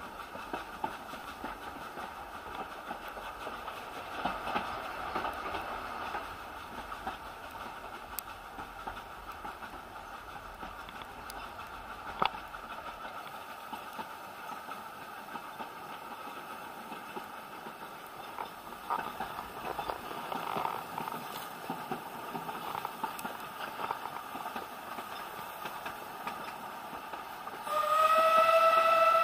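Narrow-gauge steam train carriage running along the track with a steady rumble and a few sharp clicks. Near the end the locomotive's steam whistle sounds a loud, steady note.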